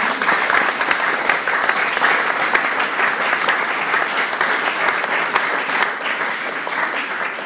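Audience applauding, a dense, even clapping that eases off slightly near the end.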